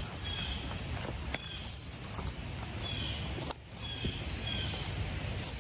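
Crickets chirring: a steady high-pitched drone with short chirps repeating on top of it.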